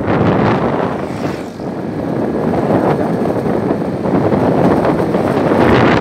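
Heavy wind buffeting on the microphone of a motor scooter riding at speed, mixed with the scooter's running and road noise; it eases briefly about a second and a half in.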